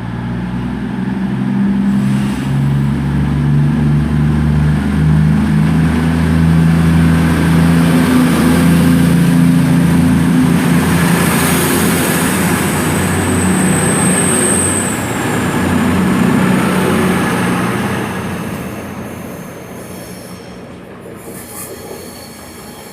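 Class 220 Voyager diesel-electric multiple unit pulling out of the station, its underfloor diesel engines running hard under power with a steady note. A brief high squeal comes partway through. The train fades away over the last few seconds.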